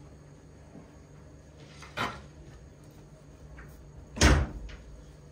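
A light knock about two seconds in, then a heavy thump just after four seconds as a wooden cutting board is set down on a glass tabletop.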